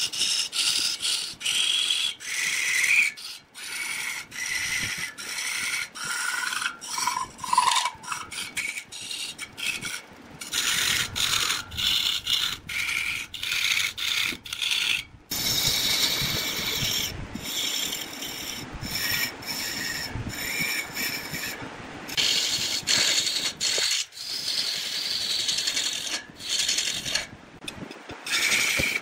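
Woodturning: a cutting tool scraping into wood spinning on a lathe, a rasping sound with a wavering whine, broken off again and again by short stops.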